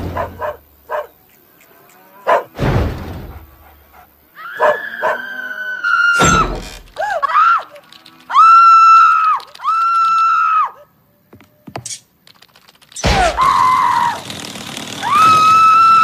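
Cartoon sound effects: a few heavy thuds, and from about four seconds in a series of long, high-pitched cries, each held at one pitch.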